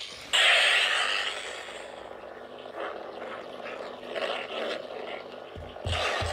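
Two Nano Biscotti V4 lightsaber sound boards playing through small speakers in Korbanth DM1 Darth Maul hilts. The second saber ignites with a sudden burst about a third of a second in. Both then settle into a steady electric hum with swells as the hilts are moved, and a quick series of low pulses near the end.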